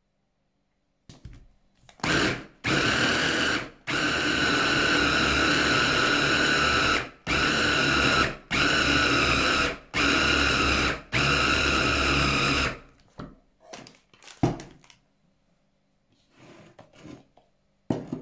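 Electric food processor motor run in about seven short pulses of one to three seconds each, then stopped, followed by a few light knocks.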